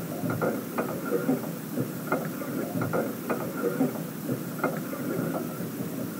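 Small waves lapping and slapping against the hull of a pontoon boat, irregular soft knocks a few times a second over a steady wash of water.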